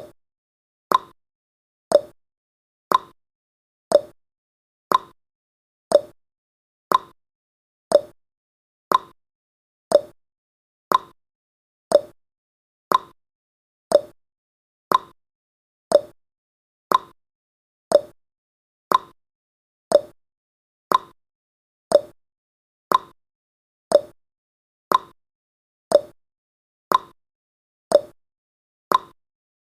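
Countdown timer ticking sound effect: a short, sharp tick exactly once a second, evenly spaced, with silence between the ticks.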